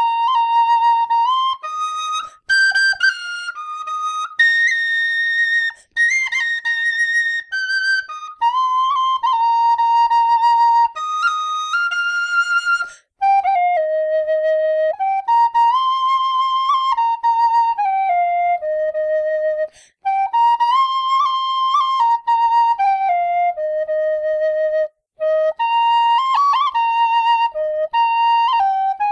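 Killarney tin whistle playing a lively melody of clear, separate notes moving up and down, with ornaments and a few short breaks for breath, played as a warm-up on the not-yet-warmed whistle.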